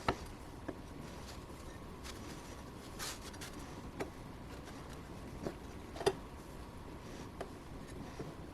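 A few light, sharp clicks and taps over a faint steady background, the loudest at the very start and about six seconds in, with a brief hiss about three seconds in. This is typical of small objects being handled and set down on a workbench.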